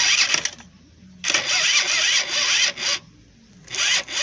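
Honda Flash S scooter's electric starter motor cranking the engine in three separate presses of about half a second to a second and a half each, without the engine catching. The battery is running flat.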